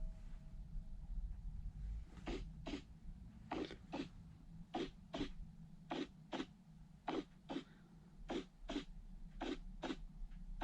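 Short, sharp breathy sounds in pairs, a pair about every second, starting about two seconds in, over a steady low hum.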